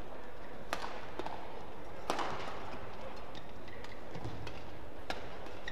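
Badminton rackets striking a shuttlecock in a fast doubles rally: several sharp cracks at uneven intervals, the loudest about two seconds in, over the steady hum of an arena hall.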